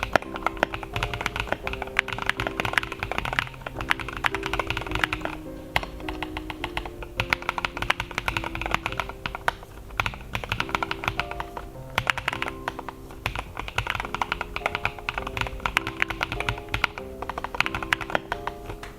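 Rapid, continuous typing on a Lofree BLOCK mechanical keyboard with linear switches: many keystrokes a second with no let-up, over background music.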